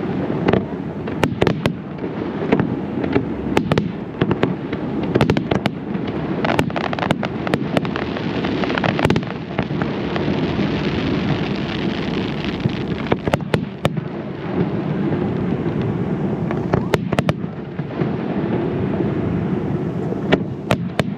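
Fireworks display: many sharp bangs of exploding aerial shells in quick succession, over a dense crackling hiss and rumble. The bangs come thickest in the first half, then thin out while a sustained crackle fills the middle.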